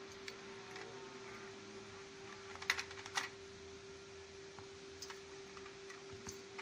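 Light clicks and taps from a plastic toy excavator being handled, with two louder sharp clacks close together about halfway through, over a steady hum.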